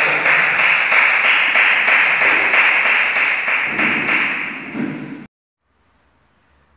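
Clapping from a small group of people, dense and steady, cutting off abruptly about five seconds in.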